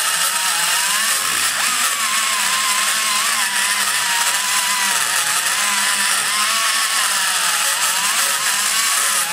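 Die grinder running steadily with a long-shank burr cutting a trench into the floor of a big-block Chevy cylinder head's exhaust port. Its whine wavers slightly in pitch as the burr bites and eases.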